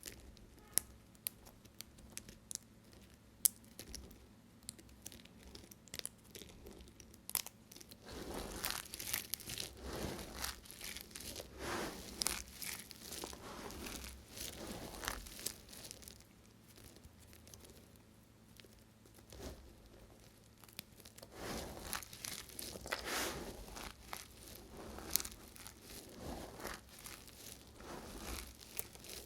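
A knife cutting through dry bar soap. First come scattered sharp cracks and clicks, then from about a third of the way in, repeated longer crunchy, rasping cutting strokes with a pause in the middle.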